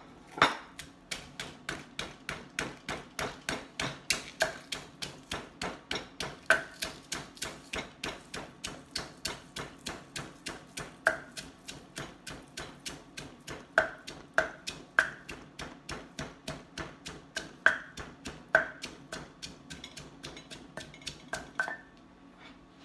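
Pestle pounding garlic and dried chillies in a mortar: steady strikes about three a second, some harder ones with a short ringing knock. The pounding stops about a second before the end.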